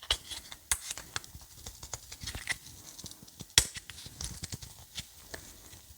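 Crinkling and small clicks of a ranch seasoning packet being handled as it is worked at and resists tearing open, with one sharper click about three and a half seconds in.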